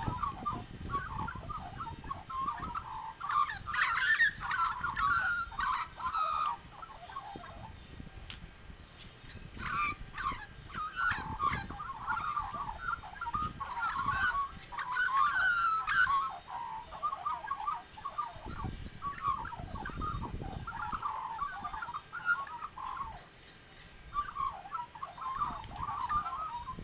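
Several Australian magpies carolling: warbling song in overlapping bouts, easing off briefly about eight seconds in and again a little past twenty seconds.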